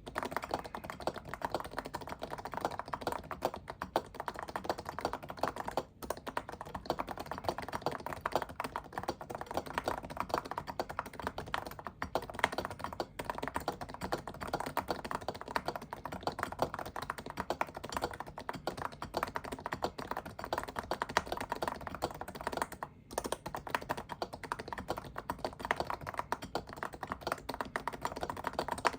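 Fast, continuous typing on a Norbatouch Topre-style electrocapacitive keyboard with a polycarbonate case, BKE Redux heavy domes and PPS keycaps. A dense stream of keystrokes runs throughout, with occasional louder strikes and a few brief pauses.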